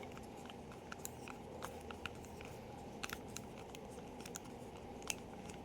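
Faint, scattered small clicks and ticks of hard plastic and metal pen parts being handled: the Parker Vector cap, its clip and the small screw from under the finial.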